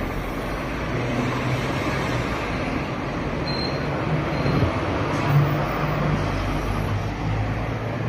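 Steady street traffic noise, with the low hum of passing vehicle engines rising and falling.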